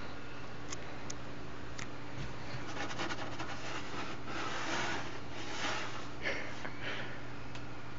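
Soft rustling and scratching of a small kitten and a person's hand moving over a terry towel and cardboard box, with a few light clicks, mostly between about two and a half and seven seconds in. A steady low hum runs underneath.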